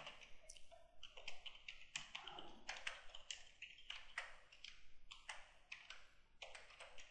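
Faint, irregular keystrokes on a computer keyboard as a line of code is typed.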